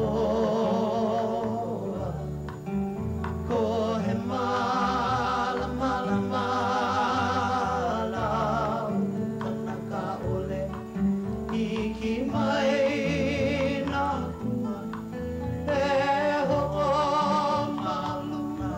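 A live song: a singer's voice with heavy vibrato, sung in long phrases over acoustic guitar accompaniment.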